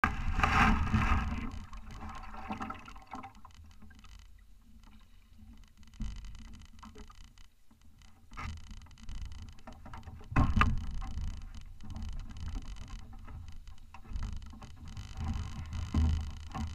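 Handling noises close to the camera at the start, then knocks and thuds on a small aluminum boat's hull as a person climbs in and moves about it; the sharpest knock comes about ten seconds in, with low rumbling after it.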